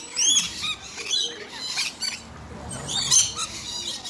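Rainbow lorikeets screeching: a series of short, shrill, high-pitched calls, loudest about three seconds in.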